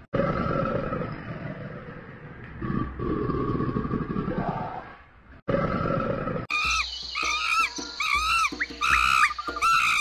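A deep, rough animal roar in two long swells lasting about five seconds. From about six and a half seconds it gives way to a quick run of short, high, squeaky calls over a steady low hum.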